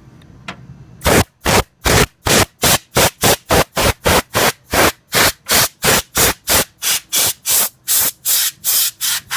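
Can of compressed air duster sprayed in rapid short hissing bursts, about three a second, starting about a second in, blowing dust out of a liquid-cooler radiator.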